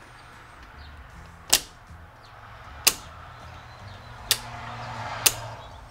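Four sharp plastic clicks, roughly a second or so apart, as a 3D-printed PLA interlock plate with brass pins is pressed and wiggled onto the handles of two circuit breakers.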